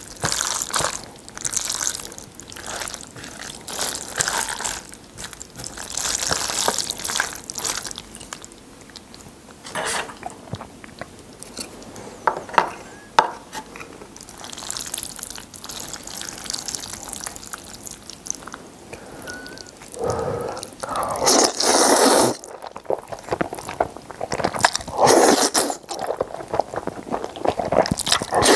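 Close-miked chopsticks stirring sticky, sauce-coated jjajang noodles on a plate, with irregular wet squelching and clicking. In the second half come louder bursts of noodles being slurped and chewed.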